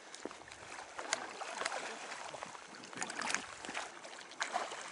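Irregular splashes in shallow river water as a hooked fish is brought to a landing net, over the steady rush of the river. There are a few separate splashes, with a quick cluster of them past the middle.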